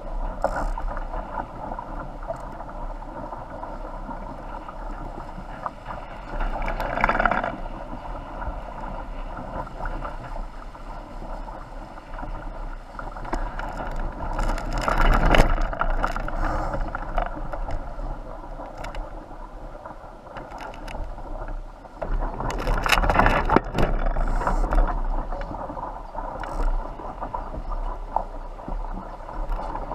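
A small sailboat under way: a steady rush of wind and water heard from high on the mast, with wind buffeting the microphone. It swells louder a few times, about 7, 15 and 23 seconds in.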